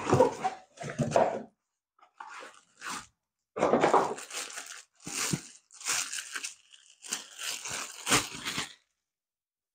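Packaging being handled and unwrapped: irregular crinkling, crunching and tearing bursts that stop abruptly near the end.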